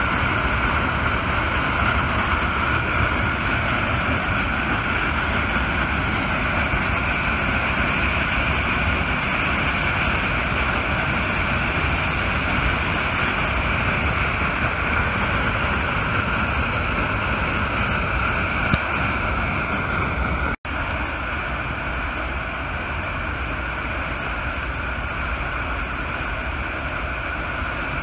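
Heavy steady rush of water jetting under pressure from the Button Rock Dam reservoir outlet and crashing into the St. Vrain River. It breaks off for an instant about twenty seconds in and comes back slightly quieter.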